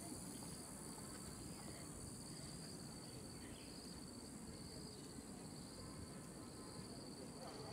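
Insects singing a continuous, faint, high pulsing trill over a low background rumble.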